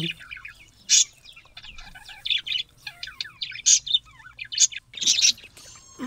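A flock of budgerigars chattering: many short, high chirps and warbles overlapping, with a loud chirp about a second in.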